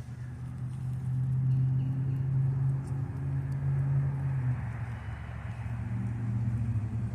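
A motor engine's steady low drone, loudest in the first half and shifting slightly in pitch about halfway through.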